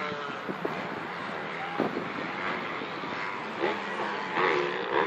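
Soccer players shouting short calls to each other across the pitch, over a steady background rush of wind and distant highway traffic.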